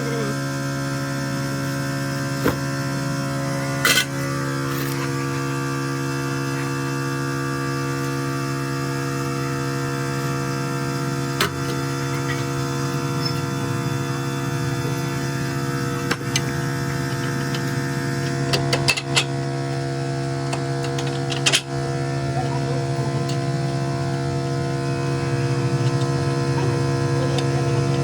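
A steady electrical-sounding hum with a few sharp clicks and knocks scattered through it, a cluster of them about two-thirds of the way in.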